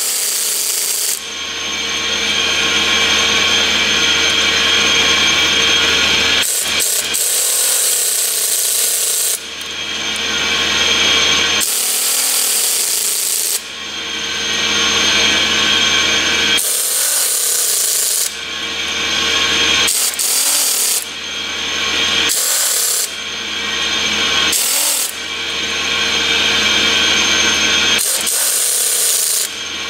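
A power tool run in repeated stretches of a few seconds, driving the jacking bolts against the compressor's shaft seal housing to press it off. Underneath is the steady noise of air compressors running in the plant.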